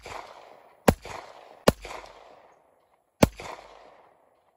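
Glock pistol firing: three sharp shots, the first two close together and the third after a longer gap, each followed by a short echoing decay, with the ring-out of another shot at the very start.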